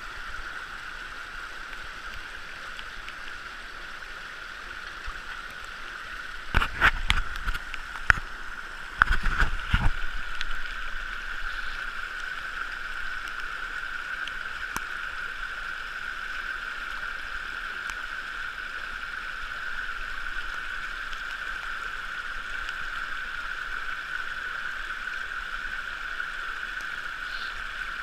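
Shallow rocky stream rushing steadily over stones and through a sluice box. A cluster of sharp knocks and clatter comes about seven seconds in and another around nine to ten seconds.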